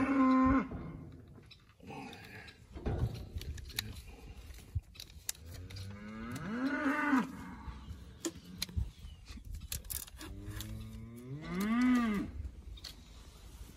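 Steer calf mooing three times: once at the very start, once in the middle and once near the end, each call rising and then falling in pitch.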